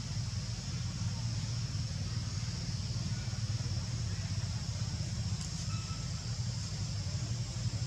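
Steady low engine-like hum with a faintly pulsing loudness, under a constant high hiss.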